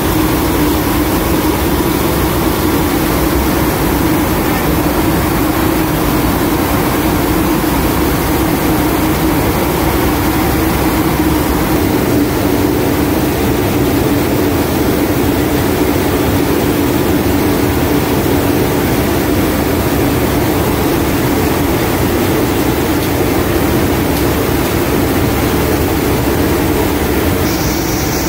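Steady, loud drone of a C-130 Hercules's four turboprop engines heard from inside the cargo hold, mixed with air rushing in through the open jump door. A steady low hum sits over a constant rushing noise.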